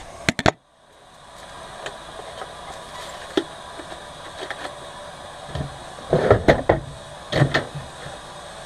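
Kitchen rolls being put away into a motorhome's overhead locker: a few sharp clicks and knocks near the start, then clusters of bumps and rattles about six and seven and a half seconds in, over a steady background hum.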